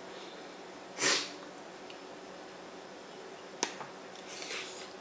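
Close-up eating sounds from a seafood boil: fingers pulling food apart, a short loud puff of breath about a second in, a sharp click at about three and a half seconds, then mouth sounds as the food is bitten near the end.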